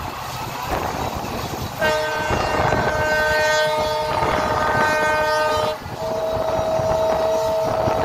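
Horn of a WDP-4D diesel locomotive at the head of the train, sounding a long multi-tone blast of about four seconds starting some two seconds in, then after a short break a second blast. Underneath is the steady rumble and clatter of the coaches' wheels on the track, heard from a coach further back along the train.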